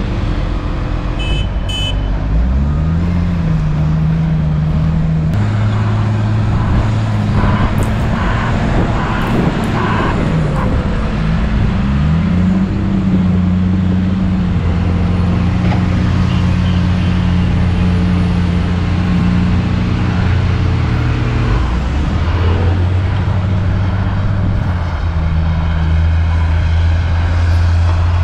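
Heavy diesel engines of earthmoving machines, an articulated dump truck and crawler dozers, running loudly and steadily, with the engine note rising and dipping as they work and drive across the site.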